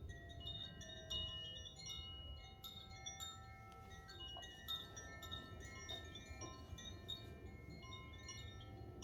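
Chimes played softly, many bright metallic tones sounding one after another, overlapping and ringing on.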